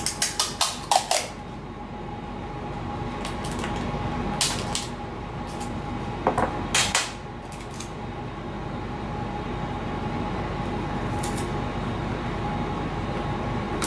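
Adhesive tape being pulled off the roll and torn into small pieces: a quick run of about five sharp tearing noises in the first second, then single tears about four and a half seconds in, around six to seven seconds, and near eleven seconds. A steady fan hum runs underneath.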